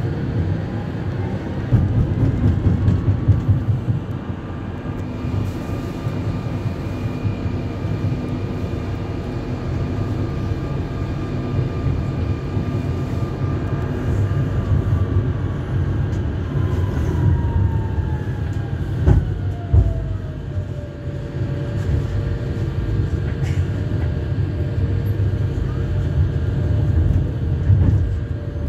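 Tram running on rails with a low rumble. Its electric motor whine rises in pitch as it pulls away, holds steady while cruising, then falls as it slows. A single sharp knock comes about two-thirds of the way through.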